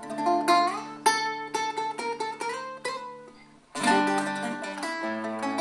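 Solo acoustic guitar intro: single picked notes, one sliding up in pitch, ringing out and fading near three seconds in, then strummed chords from just before four seconds.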